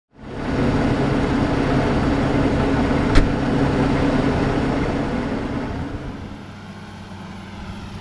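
New Holland T8.360 tractor's six-cylinder Cursor 9 diesel running steadily as the tractor drives close by, then fading about six seconds in as it moves away. A sharp click about three seconds in.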